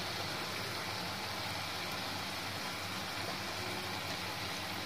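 Jalebis frying in medium-hot oil: a steady, even sizzle.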